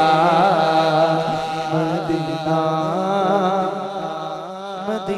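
A man sings a naat, a devotional praise song, solo into a microphone in long wavering melismatic notes, over a steady low hum. The singing grows somewhat softer in the second half.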